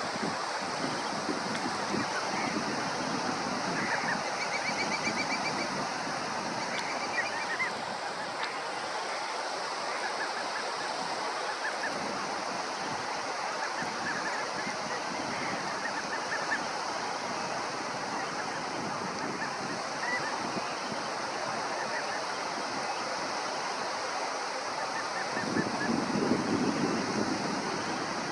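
Steady wash of sea surf and wind on the shore, with a louder surge near the end. Short trilled and chattering shorebird calls come and go over it, mostly in the first half.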